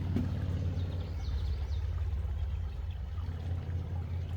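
Steady low rumble of wind buffeting the microphone outdoors, with a few faint, short bird chirps about a second in.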